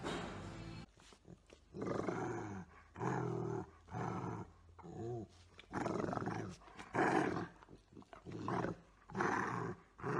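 A pet animal giving a run of about eight short calls, some of them wavering in pitch, with gaps between them.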